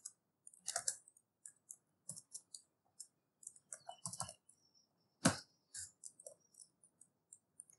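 Computer keyboard typing: short, irregular keystrokes, with one louder key strike about five seconds in.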